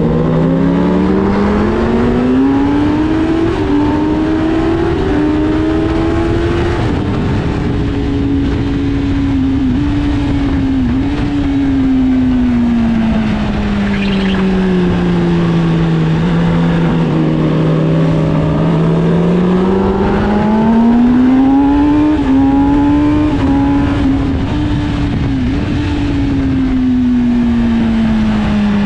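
Sport bike engine at full throttle and on the overrun, its pitch climbing and falling through the gears over steady wind noise. About 14 seconds in, a brief rising whistle-like squeal cuts in over the engine: the weird noise the rider couldn't identify, which he suspects is a dirty chain or the loose ram air duct whistling.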